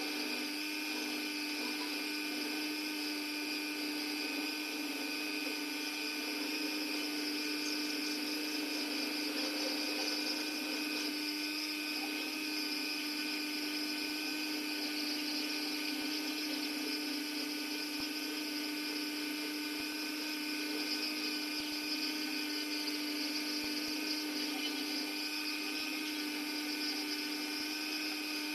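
Dremel rotary tool running steadily at high speed with a high-pitched whine, its carving burr grinding into the edge of a wooden rose petal.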